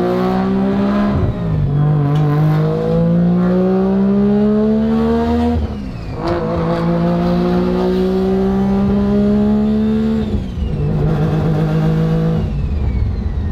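Mazda RX-7's street-ported twin-rotor engine, heard from inside the cabin, pulling hard through the gears off boost. Its pitch climbs in each gear and drops sharply at gear changes about a second, six and ten seconds in, then holds steady and eases off near the end.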